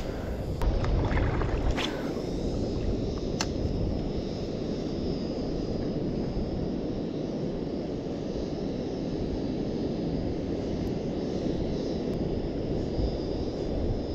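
Steady rumble of wind buffeting the microphone, with a few sharp clicks in the first few seconds.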